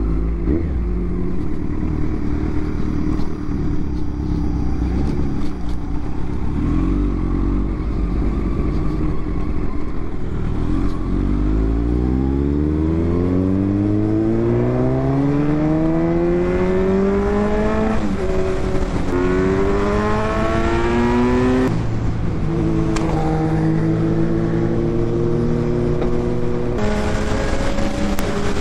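Kawasaki Z900's inline-four engine heard from the rider's seat, running at low revs at first, then accelerating hard: the pitch climbs, drops at an upshift a little past halfway, climbs again and drops at a second shift, then holds steady.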